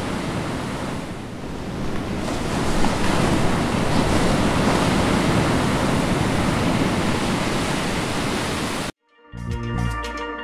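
Steady rush of waves breaking, which cuts off suddenly about nine seconds in; moments later, music with steel drums and percussion starts.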